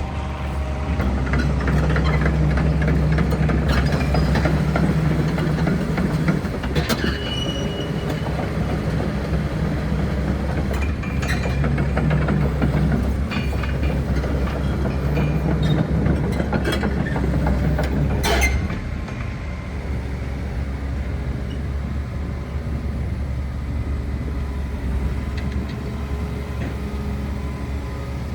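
Volvo ECR235DL tracked excavator's diesel engine running under load, with metallic clanks and squeaks from the machine working. A sharp clank comes about 18 seconds in, after which the engine runs more steadily and a little quieter.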